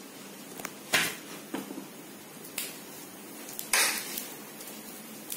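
Kitchen utensils scraping and clinking: four short sounds, the two loudest about a second in and about four seconds in, over a faint steady hiss.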